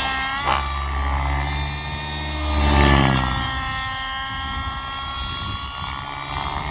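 Nitro RC helicopter's O.S. 55 HZ two-stroke glow engine running with its tuned pipe, together with the beat of the main rotor. The engine note slides up and down in pitch as the helicopter manoeuvres and is loudest about three seconds in.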